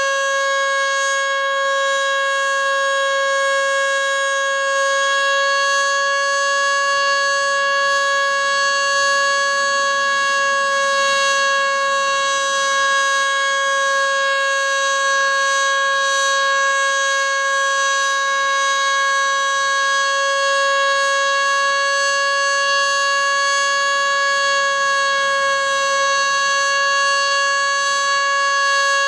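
Federal Signal Model 2 single-tone outdoor warning siren wailing on a steady pitch during a routine test, its loudness swelling and easing slightly.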